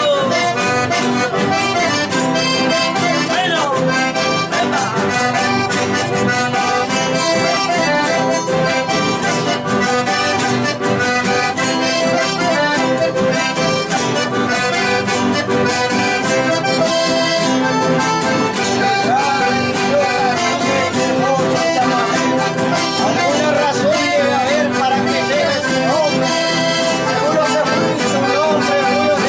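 Accordion-led Argentine folk music playing continuously.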